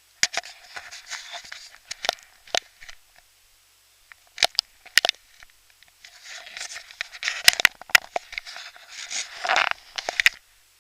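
Rustling, crackling handling noise with scattered sharp clicks, in two spells with a pause of about two seconds in the middle, thin and muffled through an action camera's waterproof housing.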